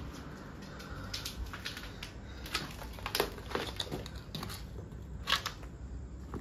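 Footsteps crunching on loose rubble and broken plaster, a run of irregular crunches and sharp cracks, the loudest a little past five seconds in.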